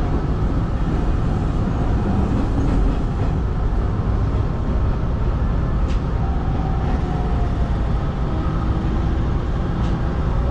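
Hanshin 5500 series electric train running on the rails, heard from the driver's cab: a steady low rumble with a couple of faint clicks. A faint whine comes in about six seconds in, falling slightly in pitch as the train nears the platform.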